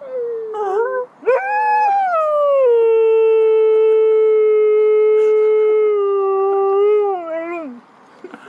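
A dog howling: a short whining call, then one long howl that rises, holds a steady pitch for several seconds and falls away near the end.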